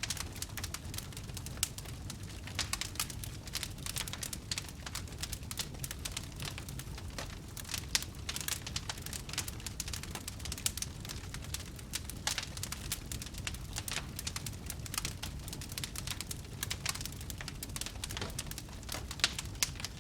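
Fire crackling: dense, irregular small pops and snaps over a low steady rumble.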